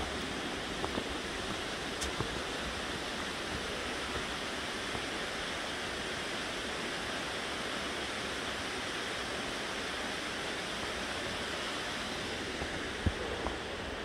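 Steady rushing of a creek and waterfall, an even wash of water noise with no change, and a single short thump near the end.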